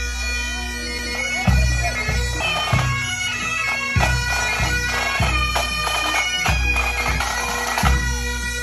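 Highland bagpipes playing a marching tune over their steady drones, with recurring low thumps about once a second.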